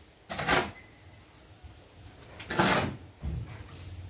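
Short-handled shovel scraping and scooping through a sand and cement-binder screed mix on a concrete floor, pushing it into the water. Two strokes, about two seconds apart.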